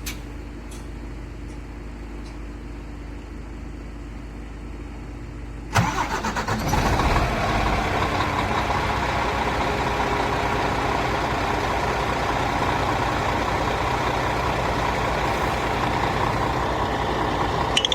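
Scania R480 dump truck's inline-six diesel engine starting: after a few seconds of low steady hum, it cranks briefly about six seconds in, catches, and settles into a steady idle.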